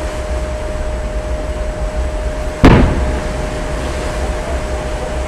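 A single loud, sharp blast of a warship's gun firing, about two and a half seconds in, over a steady low wind rumble and a faint constant hum.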